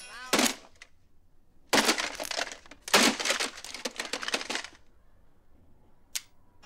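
A clock radio being struck and smashed: a hard hit just after the start, then two long clattering crashes of many impacts. Near the end comes a single sharp click, the flip-card digits turning over.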